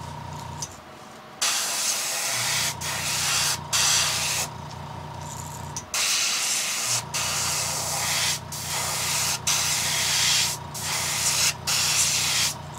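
Airbrush spraying paint onto lure bodies in a string of hissing bursts, each a second or so long with brief breaks between them. A low motor hum runs underneath and drops out twice.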